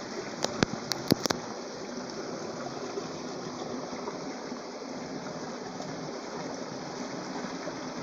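Small rocky stream flowing steadily over stones, a continuous rush of water. About half a second in, a quick run of five or six sharp clicks.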